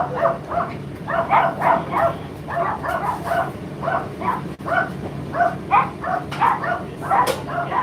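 Dog barking over and over, about two or three short barks a second with no let-up.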